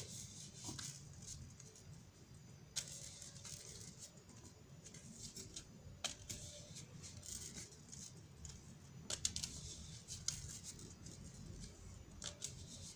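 A deck of tarot cards shuffled by hand: faint sliding and flicking of the cards, with a sharper click every few seconds.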